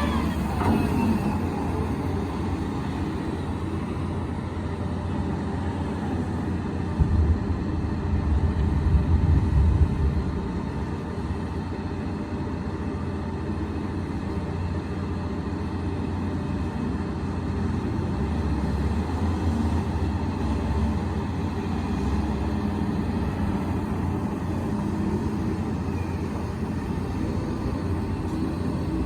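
A heavy engine running steadily with a low rumble, louder for a few seconds about seven seconds in.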